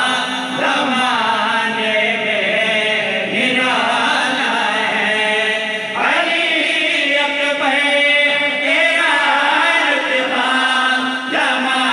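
A man singing a devotional poem in long, drawn-out melodic phrases into a microphone, with a short break between phrases every few seconds.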